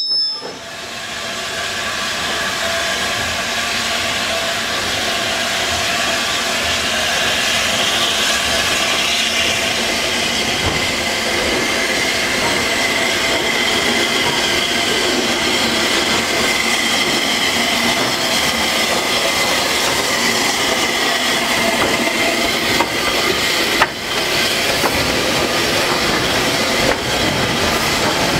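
Goods train of old wooden wagons and a brake van rolling past, its steel wheels squealing in long held tones over a steady rumble. A sharp clank sounds near the end.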